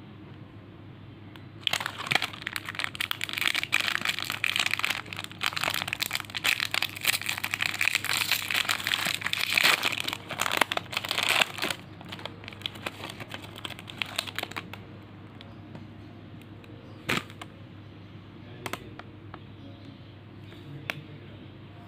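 Foil-lined plastic wrapper of a TUC cracker packet crinkling as it is torn open by hand. The crinkling is dense for about ten seconds, then thins to a few scattered crinkles and ticks.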